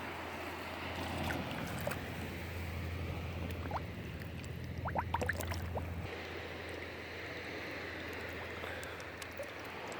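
Small waves washing onto a sandy beach with a breeze, a steady watery hiss with a few brief high notes about halfway through.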